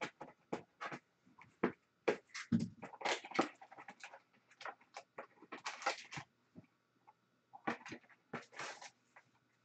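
A cardboard trading-card hobby box being slit open with a box cutter and handled: a string of short scrapes, clicks and rustles of cardboard and wrapper, busiest in a few brief clusters.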